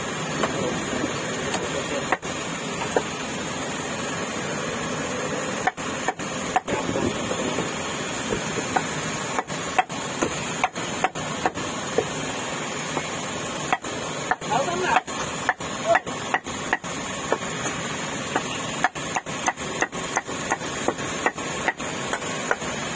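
A cleaver chopping meat on a chopping block: sharp chops, some single and some in quick runs of several, at irregular intervals over steady background noise and voices.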